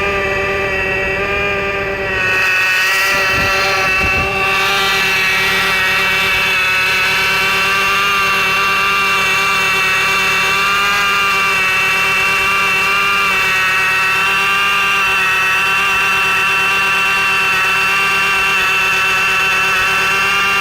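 Stratus 2.0-litre four-cylinder engine running with an extraneous noise: a steady whining tone with several pitches stacked over it, which dips and wavers briefly about two to four seconds in.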